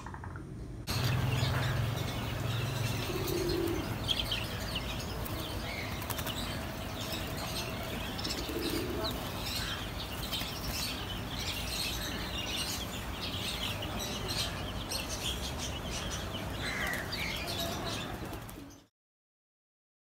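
Caged birds, zebra doves among them: wings flapping, many short high chirps and a few soft coos over a steady low hum. The sound cuts off abruptly near the end.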